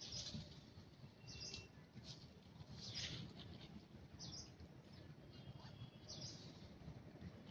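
Quiet outdoor ambience: faint soft rustles every second or two and a few thin, high bird chirps.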